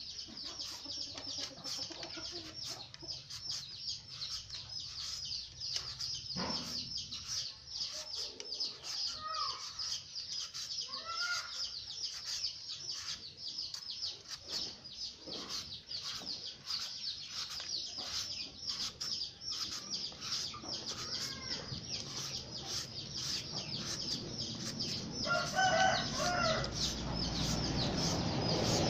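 Hand-held serrated shredder scraping down a green papaya over and over, about two strokes a second, cutting it into thin strands. Chickens cluck a few times in the background.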